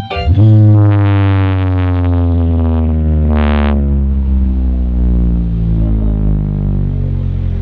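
A large outdoor sound system of subwoofer stacks and line-array speakers playing a loud, deep synthesizer bass note during a sound check. The note is held throughout and slowly falls in pitch, with a brief brighter swell about three and a half seconds in.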